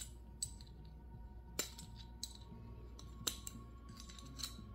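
Quiet, irregular metallic clicks of a steel pick tool against a brake caliper as an O-ring seal is worked out of its bore: about five small ticks roughly a second apart.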